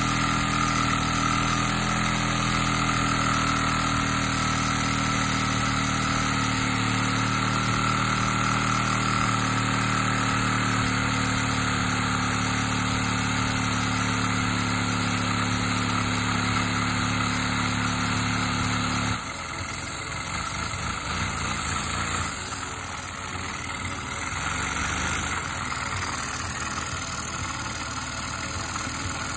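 LEGO vacuum engine running on suction from a household vacuum cleaner: a steady mechanical drone with the vacuum's whine over it. About two-thirds of the way through, the low part of the drone drops away and the sound gets quieter and less even.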